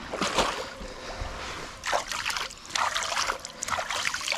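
Hands washing in shallow swamp water: a series of splashes and trickles as water is scooped and sloshed over the hands.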